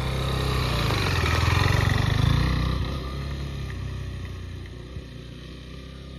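KTM 390 Adventure's single-cylinder engine pulling away at low revs across grass, growing louder for about two seconds and then fading as the bike rides off.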